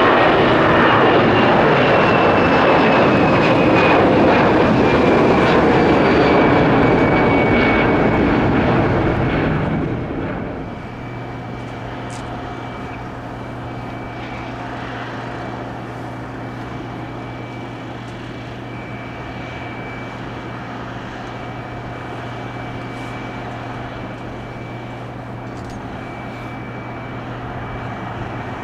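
Airbus A320 jet engines at take-off power: a loud roar with a slowly falling whine as the plane climbs away. About ten seconds in this gives way abruptly to a quieter, steady jet whine with a low hum, from another A320 coming in to land.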